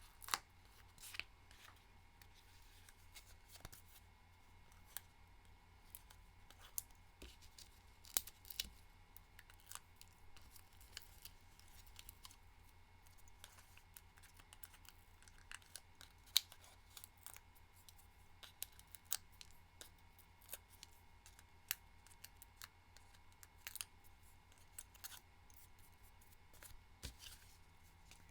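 Paper-crafting hand work at a card table, faint and irregular: scattered small clicks and ticks of paper and adhesive foam dots being handled, over a low steady hum.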